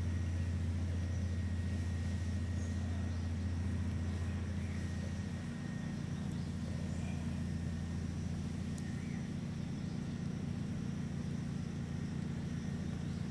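A steady low rumble, easing a little about halfway through, with a few faint short high chirps over it.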